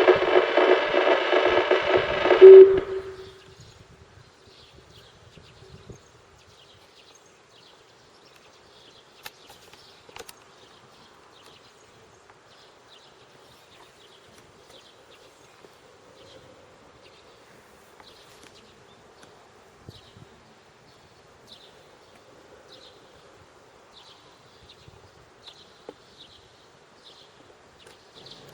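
Outdoor disaster-prevention radio loudspeaker (bōsai musen) playing the last notes of the noon chime melody, ending in a loud final note about two and a half seconds in that echoes away. Then faint outdoor ambience follows, with soft, high chirps repeating and a faint lingering hum.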